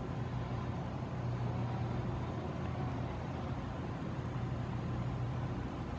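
Steady low mechanical hum of background noise, unchanging throughout, with a thin high steady whine above it.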